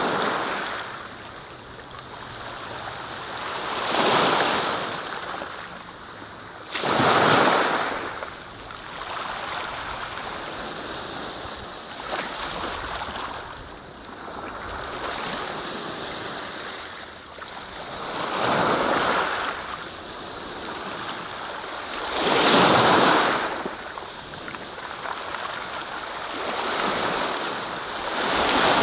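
A rushing noise that swells up and dies back every few seconds, with the loudest surges about 4, 7, 19 and 23 seconds in, in the manner of waves washing onto a shore.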